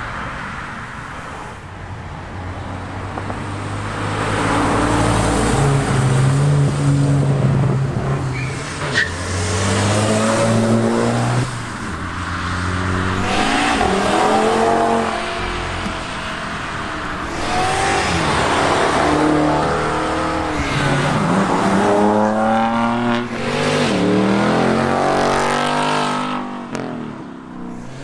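Cars accelerating hard past, one after another, their engines revving up through the gears. Each pull climbs in pitch and drops back at the shift or as the car goes by.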